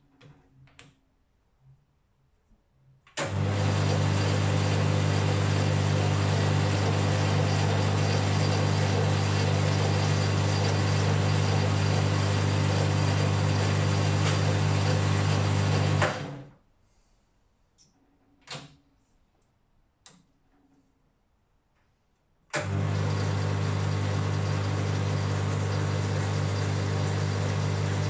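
Boxford AUD metal lathe running under power, its electric motor, drive and gear train giving a steady hum and whir with the power feed engaged. It switches on abruptly about three seconds in, runs down and stops after about thirteen seconds, a few sharp clicks of the controls follow, and it starts again about six seconds before the end.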